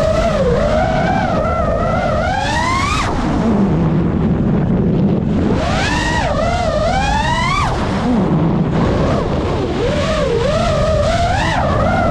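FPV racing quadcopter's motors and propellers whining, the pitch swinging up and down with the throttle. Twice the whine climbs steeply and then drops suddenly to a low hum as the throttle is chopped, before spooling back up near the end.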